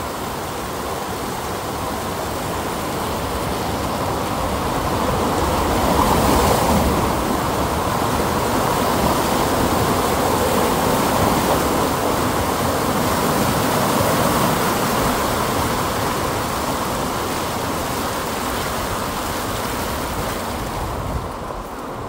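Mountain stream rushing over and around a low concrete weir, a loud steady rush of water. It swells louder from about a quarter of the way in, then falls away sharply just before the end.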